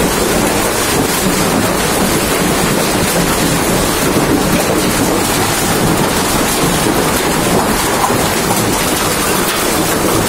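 Heavy rain with hail, a loud, steady rush.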